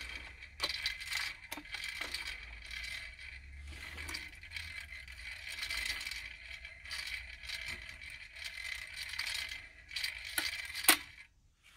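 Garrard 86SB synchronous belt-drive turntable running with a continuous rattle from the motor area, a fault the deck needs fixing, broken by a few sharp mechanical clicks. A loud click comes near the end, and the rattle then stops.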